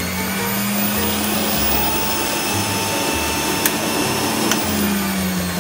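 Breville centrifugal juicer's motor running with a steady hum as it juices apple pieces; the pitch sags slightly near the end.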